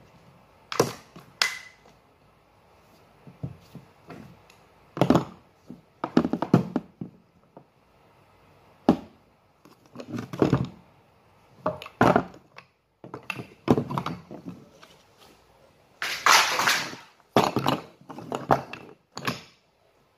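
Scattered knocks, clunks and scrapes of plumbing parts being handled and fitted by hand while a shower head is mounted on a new shower mixer, with one longer scraping noise about three quarters of the way through.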